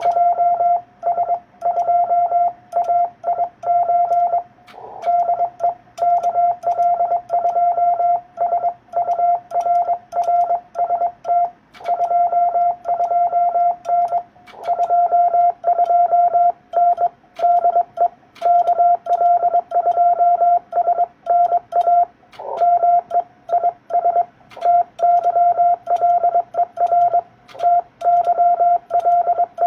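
Morse code (CW) sent on a ham radio transceiver, heard as a single steady pitch keyed on and off in rapid dots and dashes, with faint clicks along with the keying.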